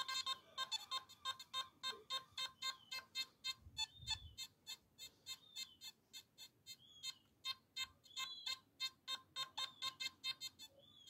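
Nokta Makro Simplex metal detector sounding its target tone: a steady run of short, high beeps, several a second, as a silver hammered coin is swept back and forth over the search coil in an air test.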